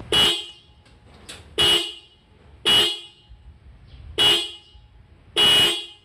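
Toyota Avanza's original factory horns, the high and low pair, sounded in five short beeps a little over a second apart, the last slightly longer.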